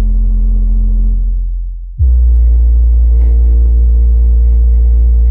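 JL Audio 10W7 subwoofer, driven by a Dayton Audio SPA300-D plate amplifier, playing deep, sustained bass notes. One low note dies away, and about two seconds in a louder low note starts abruptly and holds.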